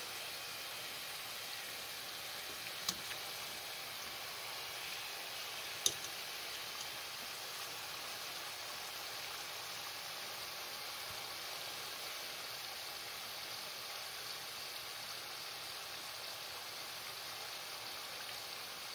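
Oliebollen batter fritters deep-frying in a pot of hot oil: a steady sizzle and bubbling. Two sharp clicks stand out, about three seconds in and again about three seconds later.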